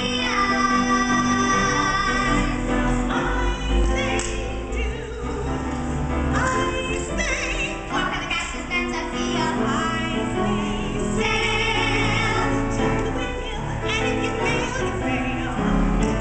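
A woman and two girls singing a Broadway show tune together, with piano accompaniment.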